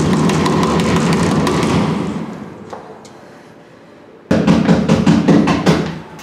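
Rapid banging on a wooden door with the hand: a burst of quick knocks for about two seconds that dies away, then a second burst about four seconds in.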